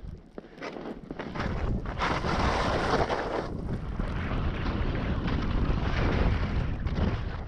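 Wind rushing over an action camera's microphone during a fast ski descent through deep powder, with the hiss of the skis in the snow. The low rumble comes in about a second and a half in and stays loud.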